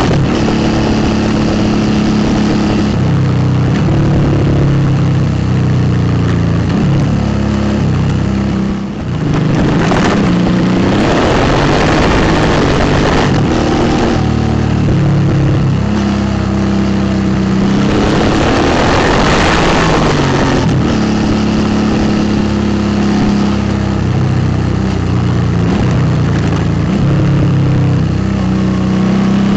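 Suzuki V-Strom 650's V-twin engine through an aftermarket Delkevic exhaust, running under way on the road. The engine note steps up and down with throttle and gear changes, with rushes of wind noise swelling about nine seconds in and again around eighteen seconds.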